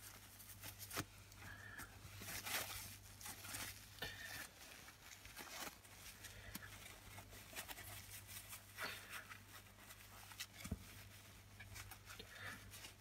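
Faint rustling and crinkling of tissue paper, with small scattered clicks, as gloved hands wipe rust-remover paste off a rusty chrome-plated metal part. A steady low hum runs underneath.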